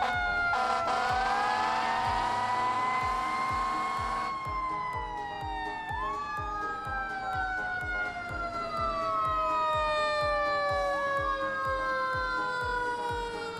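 Several emergency-vehicle sirens wailing at once, out of step with each other, each slowly rising and falling in pitch, over a steady low beat of about two or three thumps a second.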